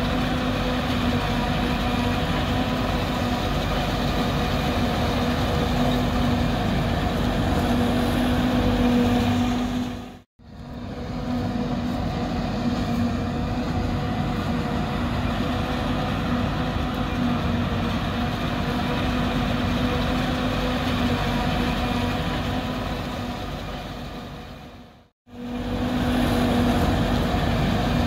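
Forage harvester and tractors running steadily while chopping corn: a loud, even drone with a steady low hum. It fades out and comes straight back twice, about ten and twenty-five seconds in.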